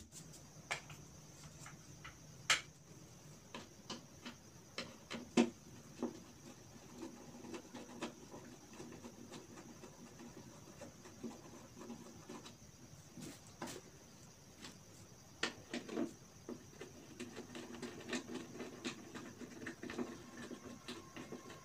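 Metal and plastic office-chair parts being handled and fitted together: scattered light clicks, taps and knocks at irregular intervals, with some soft rubbing between them.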